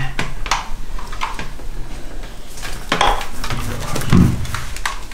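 Irregular clicks and light clattering of hard objects being handled.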